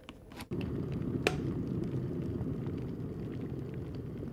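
A steady low rumble, with a single sharp click about a second in.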